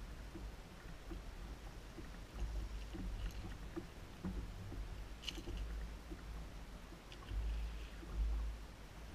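Wind rumbling on the microphone and small waves slapping against the fishing boat's hull, with faint ticks and one sharp click about five seconds in.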